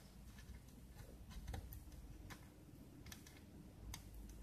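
Near silence with a few faint, irregular light clicks.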